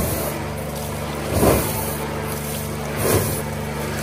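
Steady machine hum with liquid gushing from the bunghole of an upturned oak wine barrel being rinsed, swelling about every second and a half.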